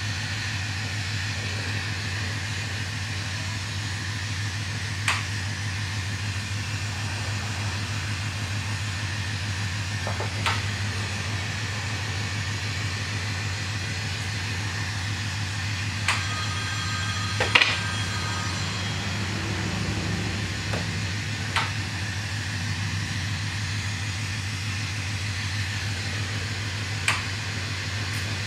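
Steady hiss of a lampworking glass torch over a low, even hum, with a few sharp clinks of glass rods and tools, the loudest ringing briefly about two-thirds of the way through.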